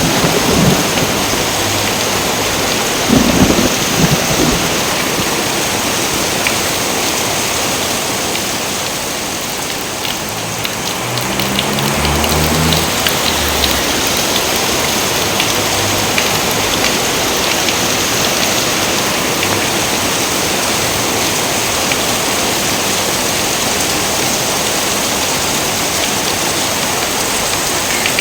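Heavy rain falling steadily, with thunder rumbling low about three seconds in and again around twelve seconds in.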